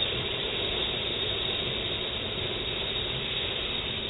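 A long, steady, breathy exhalation voicing the Taoist triple warmer healing sound, a whispered 'heee', fading away near the end.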